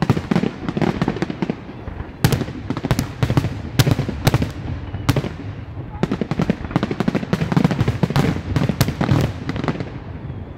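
Aerial fireworks: a rapid volley of shell bursts, bangs coming several a second over dense crackling, thinning out near the end.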